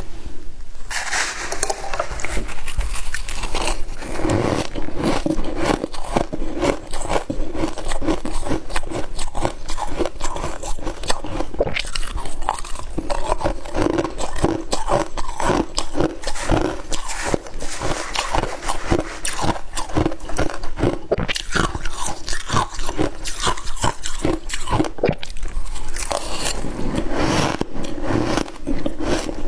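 Freezer frost being bitten and chewed, with dense crunching throughout.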